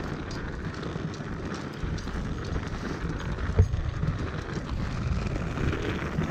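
Inline skate wheels rolling steadily over paving, with wind buffeting the microphone and a single knock about three and a half seconds in.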